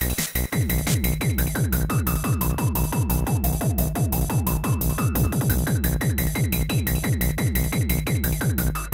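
Electronic techno loop played on a Korg Electribe groovebox: a fast, steady beat with short bass notes that slide down in pitch and crisp high percussion.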